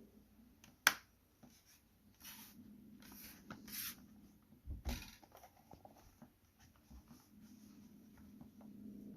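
Plastic clips of an ASUS TUF Gaming F15 laptop's bottom cover being pressed into place: one sharp snap about a second in, then scratchy rubbing of hands on the plastic case and a couple of dull knocks.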